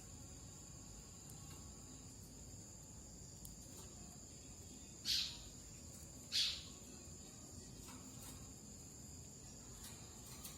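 Two short, sharp chirps from a bar-winged prinia (ciblek), about 1.3 seconds apart, halfway through. Behind them runs a steady high insect trill, like a cricket's.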